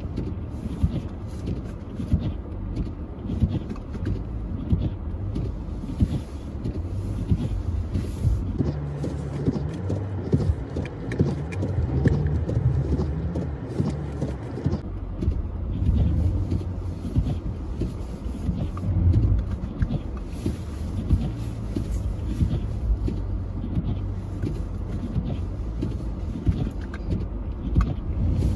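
A car's engine running under load as it climbs a snowy slope, a steady low rumble whose pitch shifts up and down through the middle.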